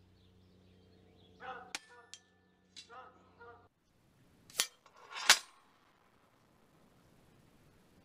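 Steel knock-down fox target hit by an air-gun pellet and falling over: two sharp metallic cracks less than a second apart, the second the loudest, with a short ring.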